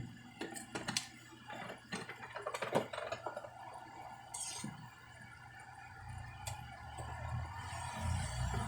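Light clicks and taps of the plastic housing and tools being handled while a Keurig coffee maker is taken apart. A low steady hum rises in over the last few seconds.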